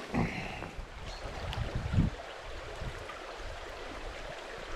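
Shallow stream running over a gravel riffle, a steady rush of water, with a brief thump about two seconds in.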